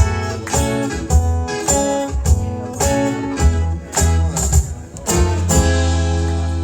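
Live band with electric guitar, bass and drums playing an instrumental passage: a run of short, accented hits with drum strikes, then a held chord from about five and a half seconds in.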